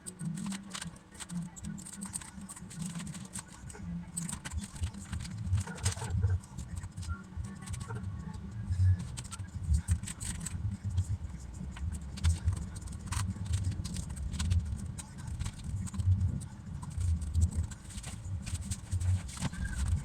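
Plastic keycaps and a mechanical keyboard being handled: irregular sharp clicks over a steady run of dull, low knocks.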